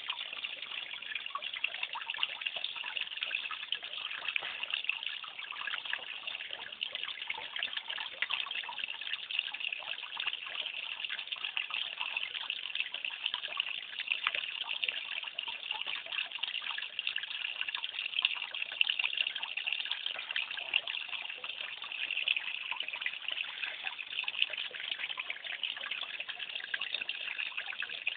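Water trickling steadily in a koi pond, with many small splashes.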